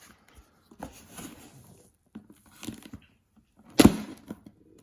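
A parcel being opened by hand: scattered tearing, rustling and crinkling of packaging, with one sharp knock a little under four seconds in.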